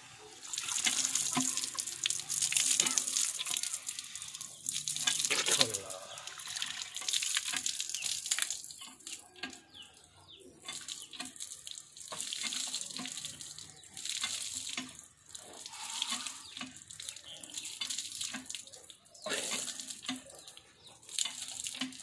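Water gushing from a hand-pumped tube well's spout and splashing onto a concrete platform and a person's hands, swelling and easing every second or two with the pumping.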